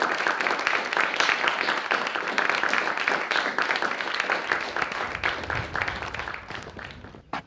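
Crowd applauding, a dense patter of hand claps that thins out and dies away over the last two seconds.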